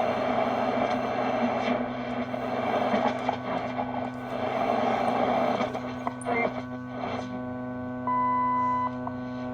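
Receiver audio from a Crosley BC-654-A radio's speaker: static and hash over a steady hum, from the vibrator power supply coming through the speaker. The static dies down about two-thirds of the way in, with a few clicks, and a short steady tone sounds near the end.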